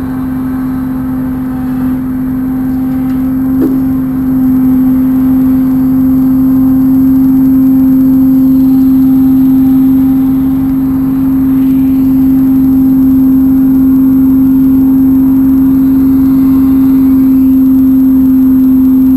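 Semi truck's diesel engine running at steady revs as it slowly pulls a flatbed trailer, a loud, even drone that gets louder a few seconds in.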